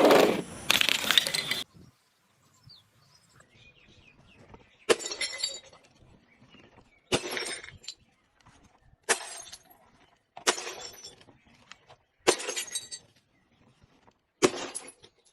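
Glass bottles breaking: a loud shattering crash at the start, then six separate smashes one to two seconds apart. Each smash is a sharp crack followed by a short crunching tinkle of glass.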